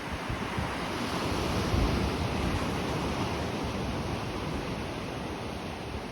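Surf washing ashore: a rush of noise that swells about two seconds in and slowly ebbs, with some wind on the microphone.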